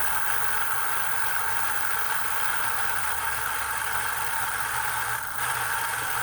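Franklin Rotary 117.123 sewing machine's belt-driven motor running steadily at full speed with the hand wheel's clutch disengaged, spinning the bobbin winder to wind a bobbin.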